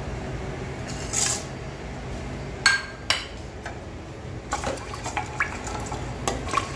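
Whole spices (peppercorns, cloves, cardamom, bay leaves) dropped into an aluminium pressure cooker, landing with a couple of sharp clinks a little before halfway, then a wooden spoon stirring them in the pan with many small clicks and scrapes against the metal base.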